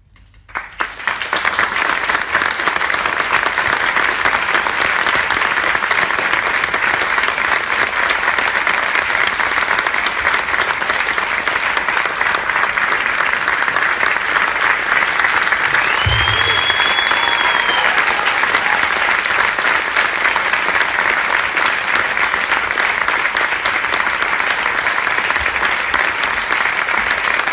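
Audience applauding at the end of a performance: the clapping breaks out suddenly from near silence about half a second in and carries on steadily. A short high tone rises and falls over it about sixteen seconds in.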